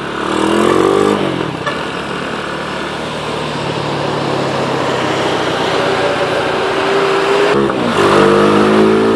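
Rusi SS250 sport bike's engine accelerating. The revs climb in the first second and fall back with a gear change. The engine then pulls steadily at rising speed, drops off briefly near the end for another shift, and climbs again.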